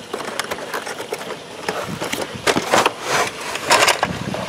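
A plastic toy fishing-game board slid out of its cardboard box: irregular scraping, rustling and light knocks of cardboard against plastic.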